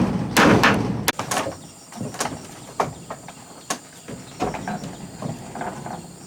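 Heavy knocks on wood, two loud ones in the first second, then lighter scattered knocks and clicks.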